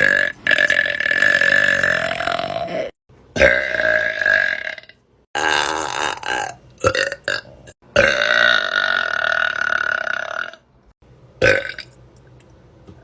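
A young woman burping loudly, one long drawn-out burp after another: several belches of one to nearly three seconds each with short breaks between them, then a short one near the end.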